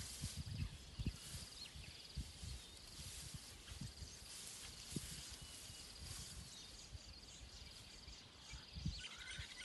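Faint outdoor ambience: an insect trills in short repeated pulses, with scattered low thumps and, near the end, a few short bird chirps.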